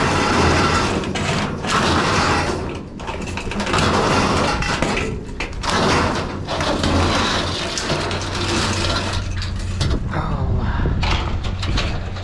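Fluorescent light fixtures being pulled out of a dumpster, with irregular metal clattering and scraping.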